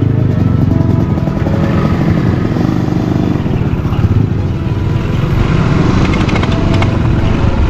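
Motorcycle engine running steadily as the bike rides along at low speed, heard from the rider's seat.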